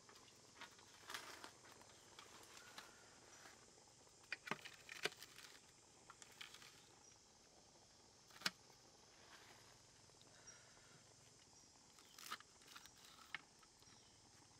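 Faint, scattered taps and snips of a kitchen knife cutting bunches of leafy greens over a stainless steel tray, with the leaves rustling as they are handled; one sharper tap about eight seconds in.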